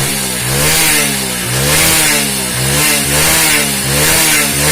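Hero HF Deluxe's 100 cc single-cylinder four-stroke engine revved up and down repeatedly, about five throttle blips, just after a top-end rebuild. The crank-like noise it had before is gone, the mechanic says the problem is solved.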